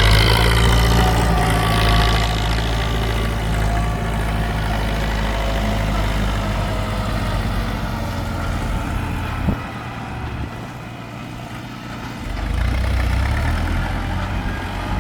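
Ford 6640 tractor's diesel engine running steadily. About two-thirds of the way through there is a sharp click, the deep engine rumble drops away for a couple of seconds, and then it comes back up.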